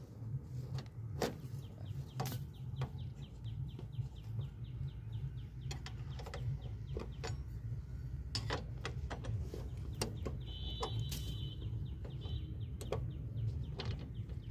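Ratcheting box-end wrench clicking in quick runs as a bolt is turned on the harvester's steel panel, with a few sharper metal clicks and knocks of the tool.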